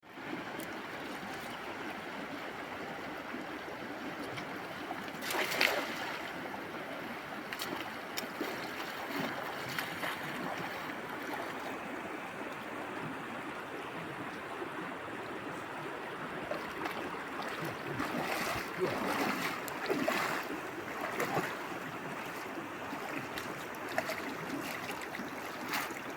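Steady rush of moving water, with a few louder splashes, the loudest about five seconds in and a cluster near the two-thirds mark.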